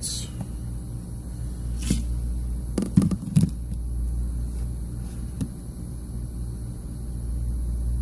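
Steady low electrical hum from the repair bench, with a few short knocks and clicks of handling between about two and three and a half seconds in.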